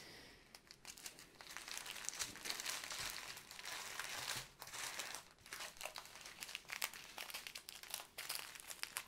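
Small clear plastic bags of square diamond-painting drills crinkling and crackling as a long strip of them is unrolled and handled.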